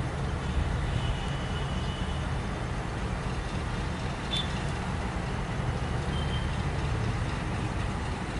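Diesel locomotive running steadily at low speed as it hauls a passenger train out of the station: a constant low engine rumble. A couple of faint short high tones and a single click about four seconds in sit above it.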